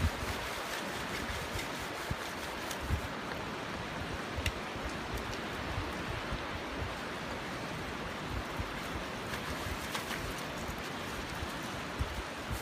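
Shallow sea surf washing over a flat sandy beach at the water's edge: a steady rush of water, with a few faint ticks.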